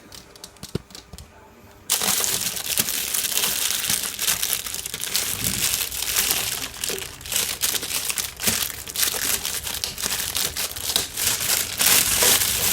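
Plastic wrapping crinkling as it is pulled off a UPS unit: after a quiet couple of seconds with a few faint clicks, a dense, continuous run of crackling begins about two seconds in.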